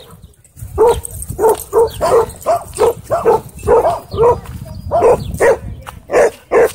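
A dog barking in a steady run of short barks, about two to three a second, starting about a second in.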